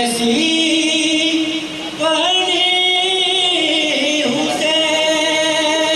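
A young man's voice singing an Urdu naat into a microphone, holding long notes with wavering melodic ornaments, with a short breath about two seconds in.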